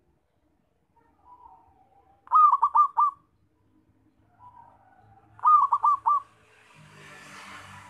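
Zebra dove (perkutut) cooing: two song phrases, each a soft lead-in note followed by a quick run of four loud coos, the first about two seconds in and the second about five and a half seconds in.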